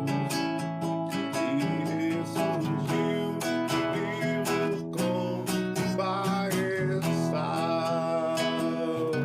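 Acoustic guitar being played, strummed chords in a steady rhythm with ringing notes over them.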